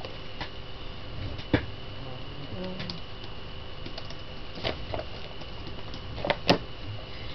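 A few scattered clicks and knocks from handling studio gear, the sharpest about a second and a half in and near the end, over a steady equipment hum with a faint high whine.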